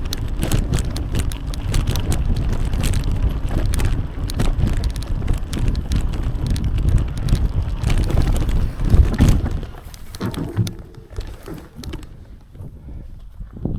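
Bicycle on the move: a rumble of tyre and wind noise on the microphone, with frequent small rattles and clicks from the bike. About ten seconds in it falls away sharply to a much quieter stretch.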